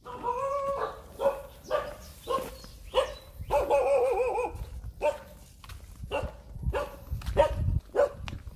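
A dog barking repeatedly, about one to two barks a second, with one longer wavering yowl about three and a half seconds in.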